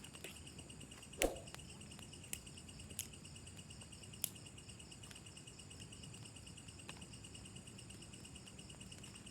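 A steady chorus of insects chirring in a fast, even pulse, with a few sharp clicks or snaps, the loudest about a second in.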